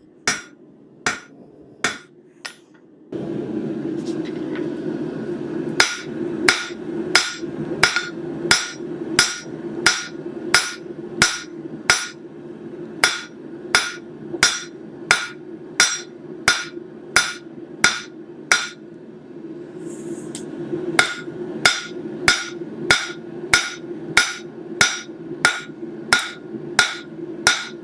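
Blacksmith's hammer striking a hot stainless steel bar on an anvil in a steady rhythm, about one and a half blows a second, each with a short metallic ring, as the butter-knife blade is forged wider. A steady low hum comes in about three seconds in.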